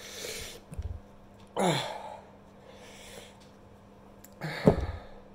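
A man breathing hard through the burn of very hot chilli sauce: a heavy exhale, then a short voiced sound falling in pitch about a second and a half in, and another short one near the end. Two dull knocks, about a second in and near the end.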